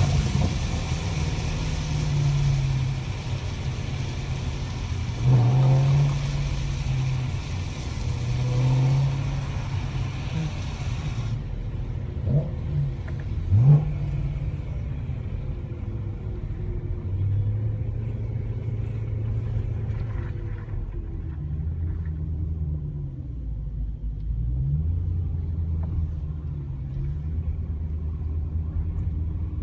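BMW E92 M3's V8 engine running at low speed, heard from inside the cabin, with a few short rises in revs. A steady hiss over it cuts off about eleven seconds in.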